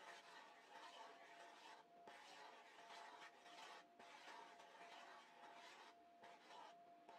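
Faint swishing and scraping of metal chopsticks stirred through thick chiffon cake batter in a metal tube pan, in strokes of about two seconds each with brief pauses, working air bubbles out of the batter before baking.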